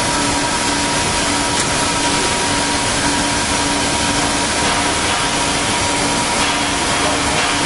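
Steady hissing roar of the cutting torch on a Kaltenbach WBZ 1500 plate profiling machine burning through steel plate, with a thin high tone held throughout and a lower hum that pulses on and off.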